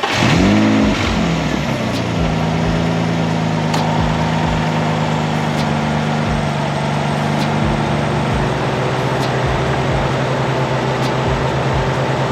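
Turbocharged Nissan 350Z's 3.5-litre V6 just after starting, run with the air intake pipe off the turbo: the revs flare up and drop back over the first couple of seconds, then it settles into a steady idle.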